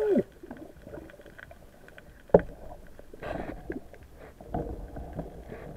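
Underwater handling noise from a spearfishing dive: faint clicks and rustles, with one sharp knock a little over two seconds in and a short rising-then-falling tone at the very start.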